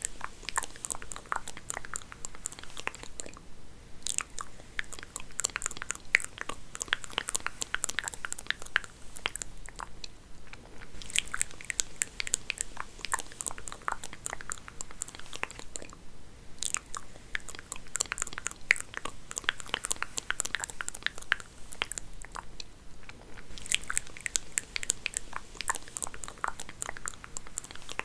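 Hair being combed close to the microphone: dense crackling and rustling in passes of several seconds, broken by short pauses.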